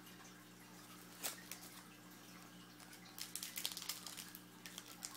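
Football trading cards being handled and flipped through: short crisp clicks and slides of card stock, one sharp click about a second in and a flurry of them a little past the middle, over a steady low electrical hum.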